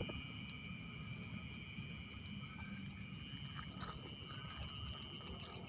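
Chorus of insects chirring steadily at a high pitch, with a low rumbling noise underneath.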